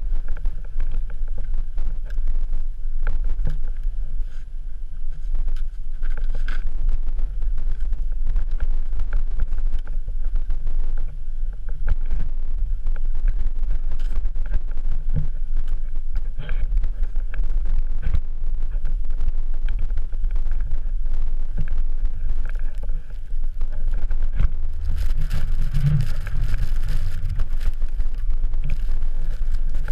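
Wind buffeting the camera microphone: a loud, low rumble that surges and eases, with scattered short knocks and scrapes, and a harsher, hissier gust near the end.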